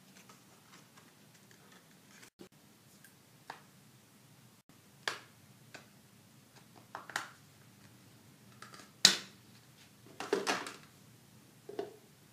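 Scattered plastic clicks and snaps from handling a Xiaomi Redmi Note 4G as its snap-on plastic back cover is prised off and its clips release. The loudest snap comes about nine seconds in, followed by a quick run of clicks a second later.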